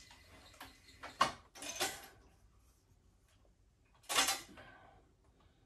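Cowboy CB-4500 heavy-duty leather sewing machine stitching slowly through heavy leather with thick thread: three short clacking strokes, two about half a second apart a second or so in and one near four seconds, with near quiet between.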